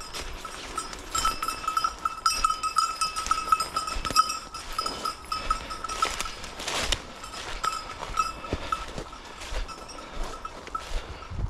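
A hunting dog's bell jingling quickly and continuously as the dog moves through cover, a sign that the dog is still questing and not on point. The bell is strongest in the first half and becomes fainter and broken after about seven seconds, with scattered crackles in between.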